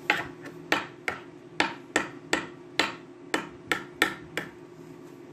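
A quick run of about a dozen sharp knocks, roughly three a second, each with a short ringing tail, stopping about four and a half seconds in.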